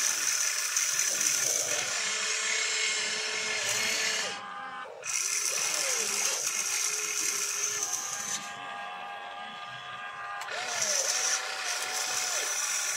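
Radio-controlled excavator's motors whining as it digs dirt, swings over a dump truck and swings back, the pitch bending up and down with each move. The whine drops away briefly twice.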